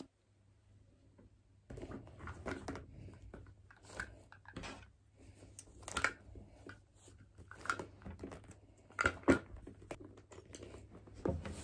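After a second or two of near quiet, irregular rustling, crinkling and soft knocks of a handbag being packed: a cloth pouch pushed into the bag and the bag handled.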